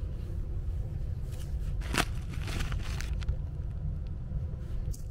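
Loose blown-in attic insulation rustling and crackling as a hand digs through it, with one sharp crackle about two seconds in, over a steady low rumble.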